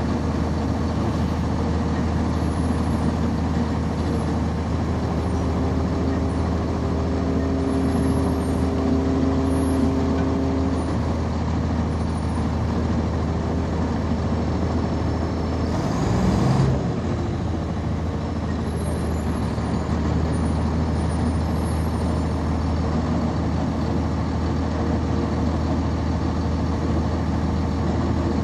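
Cummins ISC diesel engine of a 1999 NovaBus RTS transit bus running steadily, heard from on board, with a short burst of air hiss about 16 seconds in.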